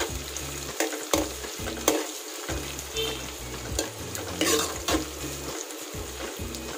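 Chopped shallots, green chillies, garlic and curry leaves sizzling in hot gingelly (sesame) oil in a kadai while a steel ladle stirs them, scraping and clinking against the pan several times.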